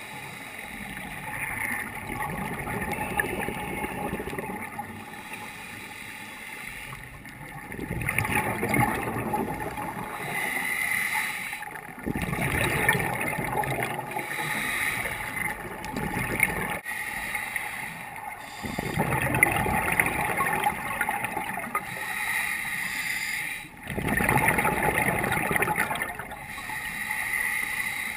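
Scuba regulator exhaust bubbles gurgling in repeated bursts every few seconds, heard muffled through an underwater camera housing, with quieter stretches of water hiss between breaths.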